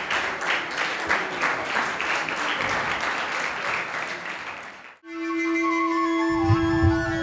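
A crowd clapping in rhythm, fading out about five seconds in. Then a flute-like melody begins over a long held note, with soft low pulses joining shortly after.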